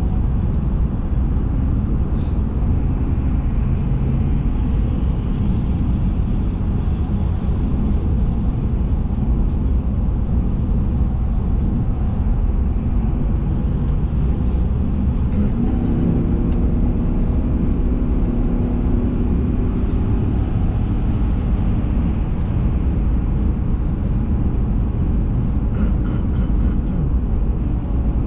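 A vehicle on the move: a steady low road and engine rumble, with the engine's note coming up and rising a little about halfway through.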